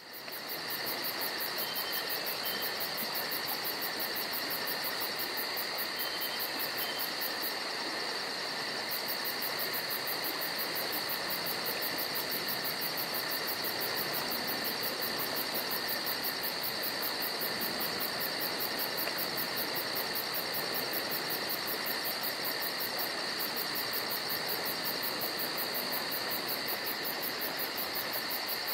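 Steady insect chorus with a fast, even high pulsing that holds unchanged throughout.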